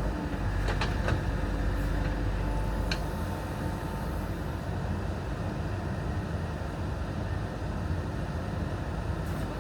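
JCB 3DX backhoe loader's diesel engine running steadily while the machine works, with a couple of faint knocks in the first few seconds.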